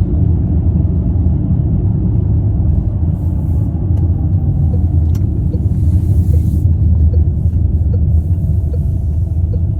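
Inside a moving car: steady low rumble of the engine and tyres on the road. About halfway in, a light, regular ticking starts, a little under twice a second.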